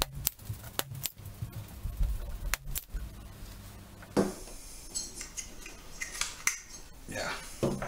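Spring-loaded desoldering pump (solder sucker) being cocked and fired against a circuit board while a soldering iron melts the joints, giving a series of sharp, irregular clicks and snaps. Near the end the loose board is lifted and handled with a light clatter.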